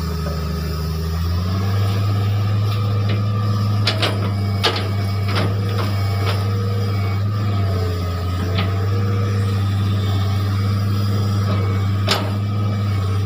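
Hitachi hydraulic excavator's diesel engine running steadily under load, rising in pitch about a second in as the grapple lifts a heavy log. Several sharp knocks of log and grapple come around four to five seconds in, and once more near the end.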